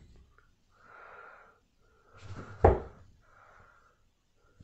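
A 23 g Designa Smoothie steel-tip dart thuds once into a Winmau Blade bristle dartboard, a single sharp hit about two and a half seconds in. Softer hissy sounds come a second or so before and after it.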